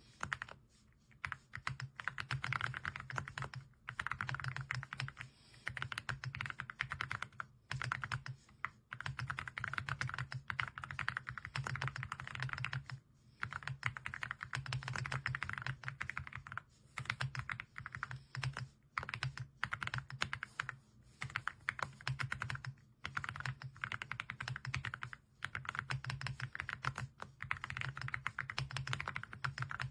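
Typing on an AULA F99 mechanical keyboard with pre-lubed linear switches: fast runs of keystrokes with brief pauses between bursts.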